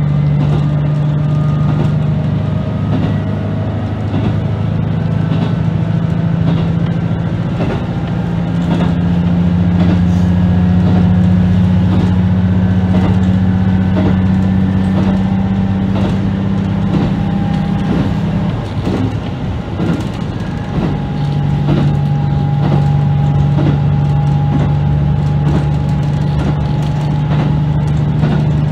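KiHa 75 diesel multiple unit running at speed, heard from the cab: a steady engine drone with a run of clicks from the wheels over rail joints. About two-thirds of the way through, the engine note drops away for a couple of seconds, then picks up again.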